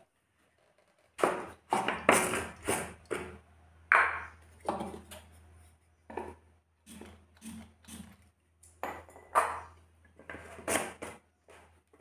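Plastic knocks and clinks from handling a homemade PVC-pipe and plastic-bottle spray-powered gun: a dozen or so sharp knocks at irregular spacing, some briefly ringing, over a low steady hum.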